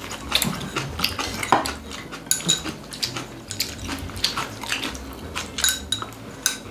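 Chopsticks and other eating utensils clicking and clinking irregularly against ceramic plates and bowls at a meal, with eating sounds.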